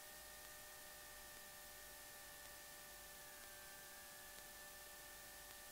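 Near silence: only a faint, steady electrical whine of several thin tones, one of them dipping slightly in pitch midway. No engine sound comes through.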